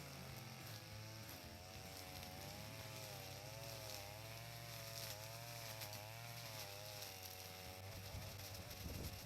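Two-stroke brush cutter engine running, its pitch wavering up and down as the throttle and the load of the grass change, for about eight seconds.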